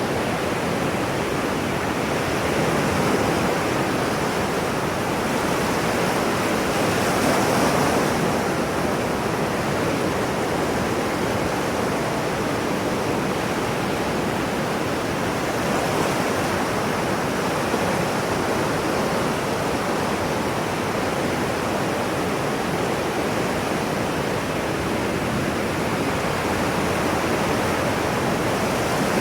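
Ocean surf: a steady rush of breaking waves, swelling slightly a couple of times.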